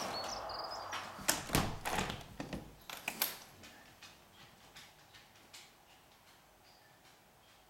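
Steady rushing traffic noise from the M11 motorway, with a bird chirping briefly at the start. About a second in, a run of sharp knocks and clicks follows, after which the traffic noise drops away and it goes quiet.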